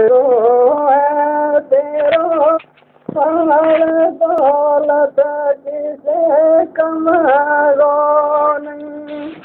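Unaccompanied man singing a Gojri bait, a folk verse sung in a high, held voice with bending ornaments. He breaks off briefly about two and a half seconds in.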